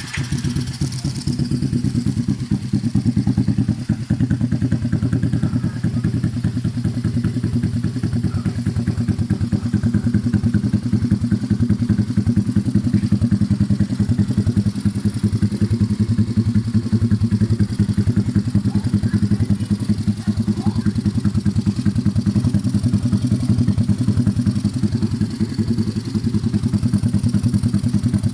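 Yamaha Mio i125 scooter's single-cylinder four-stroke engine, bored out to 160cc and breathing through a VMAX open exhaust pipe, idling steadily with a fast, even exhaust pulse.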